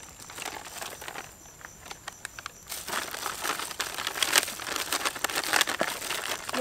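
Plastic packet crinkling as white powder is shaken out of it onto raw chicken legs in a metal tray, with scattered clicks. About three seconds in the crinkling gets louder and busier.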